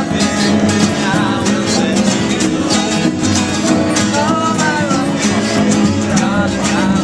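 Live acoustic guitar band: an acoustic guitar strummed in a steady rhythm with a second guitar, and men singing along.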